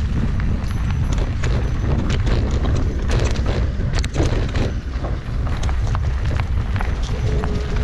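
Mountain bike ridden over a rough dirt trail: the bike rattles and clicks over the ground, many sharp knocks in quick succession, over a steady low rumble.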